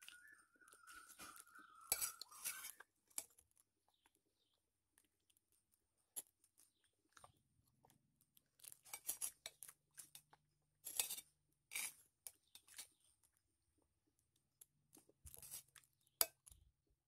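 Faint close-up chewing with scattered clicks and small crunches, as someone eats the rolled egg omelette with corn; a thin high tone slides down over the first few seconds.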